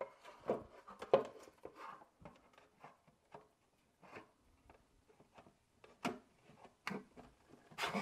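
Hard plastic handling noise: light knocks, clicks and rubbing as a Kobalt 85-watt compact charger is turned and fitted against a plastic charger base. The knocks are scattered, a few sharper ones standing out among soft scraping.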